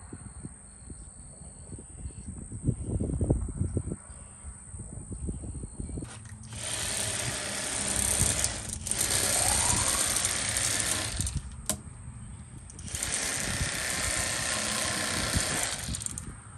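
Electric fillet knife running twice, about five seconds and then about three seconds, its reciprocating serrated blades buzzing as they cut fillets from a crappie. A few low knocks and bumps come before it starts.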